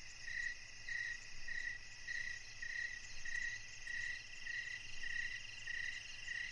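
Night ambience of crickets chirping: a pulsed chirp just under twice a second over a steady high trill.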